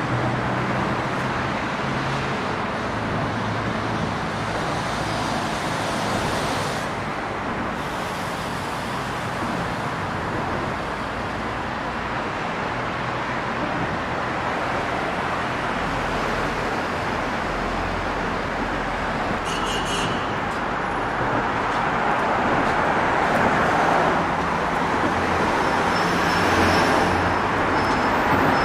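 Steady traffic rumble under a bridge, cars passing by with tyre and engine noise, swelling louder near the end. A brief high rattle about twenty seconds in.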